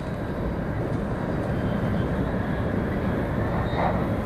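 Running noise inside a 700 series Shinkansen car at speed: a steady low rumble that grows a little louder during the first second or two.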